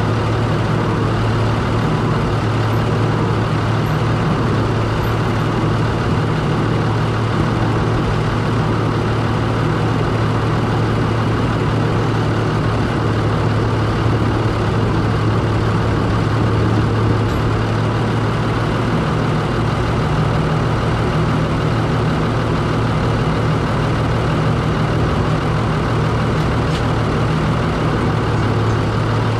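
Ruston Bucyrus 22RB dragline's diesel engine running steadily under the operator's cab: a loud, constant low hum that holds level throughout.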